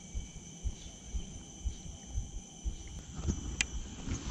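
Steady high-pitched insect chorus, with soft low thumps about twice a second from footsteps on a path and one sharp click about three and a half seconds in.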